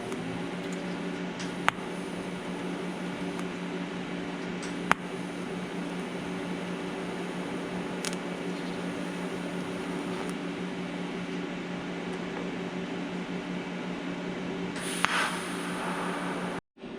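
Steady machine hum with a few sharp clicks, and a short hiss about fifteen seconds in.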